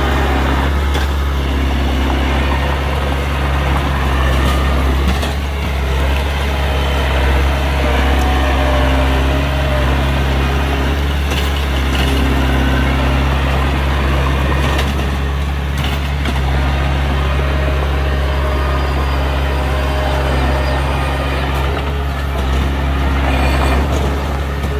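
Heavy diesel engine of earthmoving machinery running steadily with a constant low hum, with occasional short clanks and knocks.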